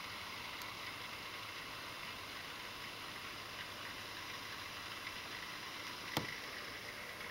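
Steady faint hiss with a single sharp click about six seconds in.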